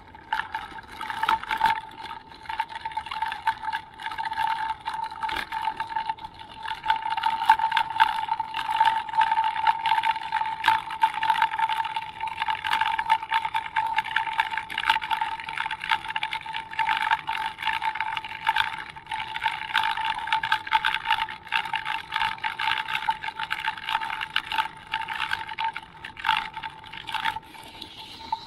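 Electric drive motor of a GoGo ultralight mobility scooter whining at a steady pitch as it drives, with frequent knocks and rattles from its solid tyres jolting over the rough road surface. The whine cuts out near the end.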